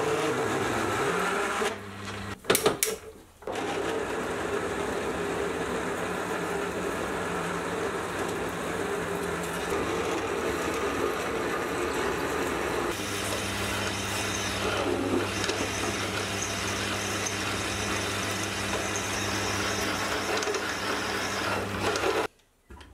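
Hafco AL250G metal lathe running under load as a large Silver & Deming drill bit cuts into a spinning solid steel bar: a steady motor hum with the grinding noise of the bit and chips. A few sharp clicks break it about two to three seconds in, and it stops shortly before the end.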